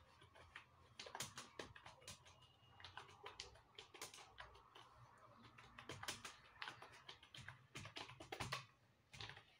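Faint typing on a wired computer keyboard: a quick, irregular run of key clicks that starts about a second in.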